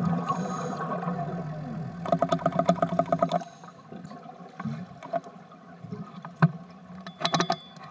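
Underwater bubbling of a scuba diver's exhaled breath through the regulator, heavy and rapidly pulsing for about three seconds, then dropping to a quieter stretch of scattered clicks and pops.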